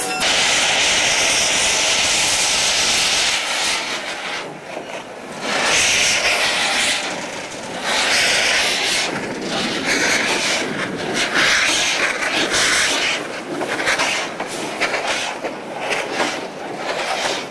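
Small steam tank locomotive blasting steam from its open cylinder cocks in loud hissing surges. The first surge lasts about three seconds; after that they come roughly every one and a half to two seconds.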